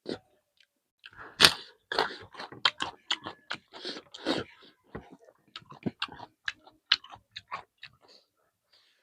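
Close-up chewing and crunching of a mouthful of food, with irregular wet mouth clicks and crackles, loudest about one and a half seconds in.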